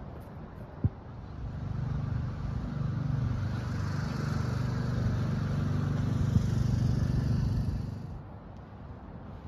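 A motor vehicle's engine hum swells up over a couple of seconds, holds steady, and fades away near the end. There is a single sharp knock about a second in.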